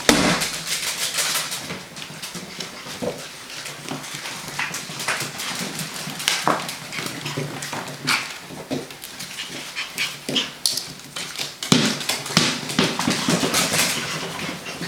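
Six-week-old puppies running about, their paws pattering in many quick, irregular taps.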